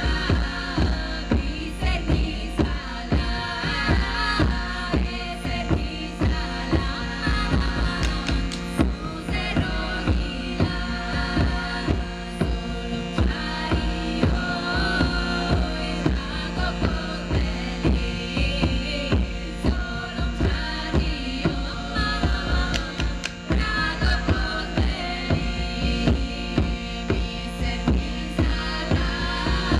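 Live music: several women singing together at microphones over a steady drum beat of about two strokes a second and a held low drone.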